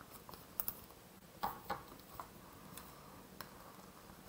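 Cardstock pieces being picked up and handled on a craft work mat: a few scattered light taps and clicks of paper, irregularly spaced, with soft handling noise between them.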